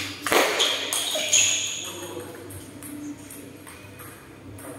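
Several sharp knocks in quick succession in the first second and a half, each followed by a brief high ringing tone, then only a few faint ticks over low room noise.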